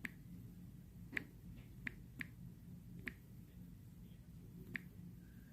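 Six faint, short, sharp clicks at irregular intervals over a low steady room hum.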